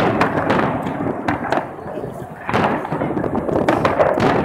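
Aerial firework shells bursting in a dense run of bangs and crackling, with a loud burst right at the start and another flurry of bangs about two and a half seconds in.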